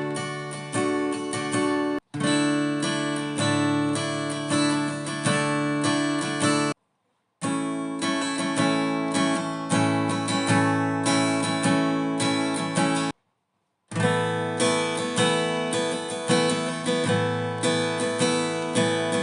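Acoustic guitar strumming chords with an added ninth, struck in a steady rhythm, each strum ringing and fading. The playing breaks off into silence three times: briefly near 2 seconds in, then for under a second around 7 and 13 seconds.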